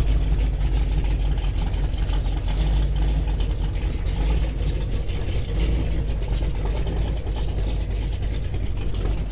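AMC 360 V8 with a roller cam, Hedman headers and glass-pack mufflers, idling steadily in a 1975 Jeep CJ5, heard at the exhaust pipe: an authoritative idle.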